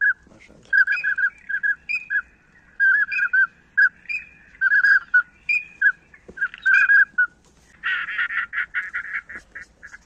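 Ducks calling: short nasal calls, single or in quick runs of two to four, then a faster, harsher chattering run of calls in the last couple of seconds.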